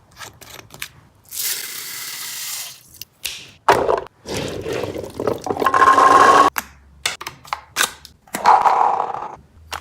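Toy gel blaster clicking and being handled, with a hiss of about a second, then several firing bursts with a motor whine, the longest lasting about three seconds.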